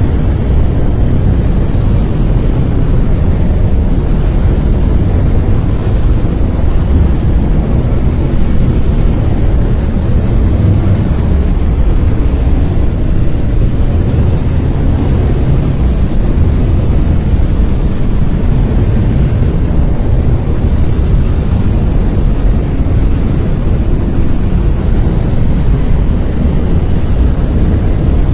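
Brown noise: a steady, loud, deep rumbling hiss, heaviest in the bass and fading toward the treble, without change or events.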